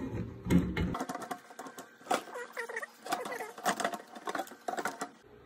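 Moulded-case circuit breakers being handled and set in place, with knocks and thumps in the first second. A run of short clicks and brief squeaks follows.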